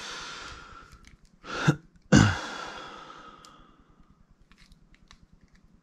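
Close breath sounds from a person: a sharp exhale at the start and a louder one about two seconds in, each fading off slowly, with a short voiced sound just before the second. Near the end come a few faint clicks from the small plastic action figure being handled.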